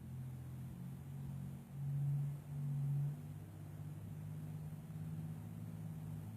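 Eagle Model 15 coach's Detroit Diesel 6V92 two-stroke V6 diesel running with a steady low hum, swelling louder twice about two and three seconds in.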